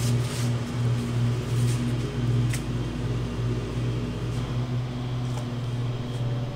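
Lawn mower engine running, a steady low hum that swells and dips about twice a second.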